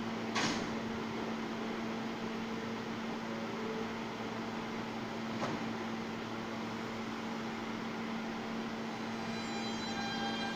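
A stopped R160-series subway train's ventilation and auxiliary equipment humming steadily, with a sharp click about half a second in. Near the end a whine of several tones begins as the traction motors start to pull.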